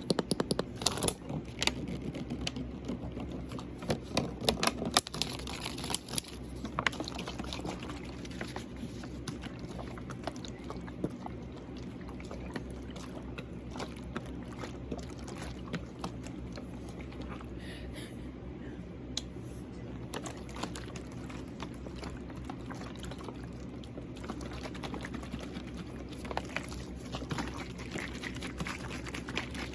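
Water sloshing inside a water bottle as it is handled, with taps and scratches on the bottle, packed closely in the first few seconds. A room fan hums underneath.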